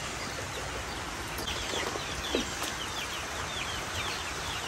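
Chicks peeping: a quick run of short falling peeps, about three a second, starting a bit over a second in, with one lower cluck near the middle.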